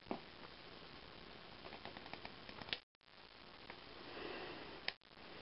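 Faint scattered clicks and handling noise from a cap-and-ball revolver being worked by hand, over a low hiss.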